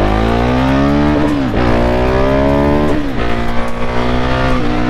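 Husqvarna 701 Supermoto's single-cylinder engine accelerating hard through the gears. Its pitch climbs, drops sharply at an upshift about a second in and again about three seconds in, then climbs more slowly with a small dip near the end.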